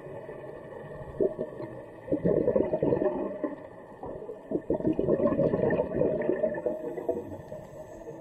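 Underwater sound of a scuba diver breathing out through the regulator: two bubbling bursts, each a second or more long, about two seconds in and again just under five seconds in, over a steady underwater hiss with faint steady tones.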